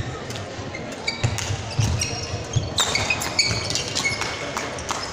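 Badminton play on a wooden sports-hall floor: short high shoe squeaks, footfall thuds and sharp clicks of rackets striking the shuttlecock, with the squeaks and clicks coming thickest from about three seconds in.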